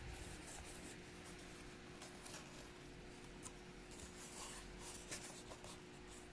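Faint scratching and rubbing of corrugated cardboard being handled and worked by hand, in scattered short scrapes, over a faint steady hum.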